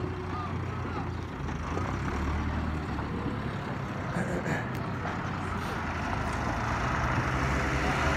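A motor vehicle engine running steadily with a low hum, growing louder near the end.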